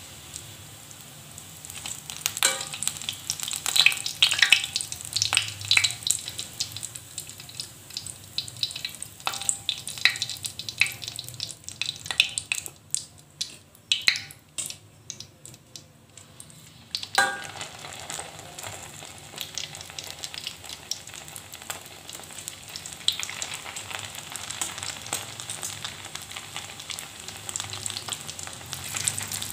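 Hot cooking oil in a wok crackling and popping as deep-fried pastel pastries are lifted out with tongs. The pops thin out, then about halfway through a new batch goes into the oil and a steady, dense sizzle sets in.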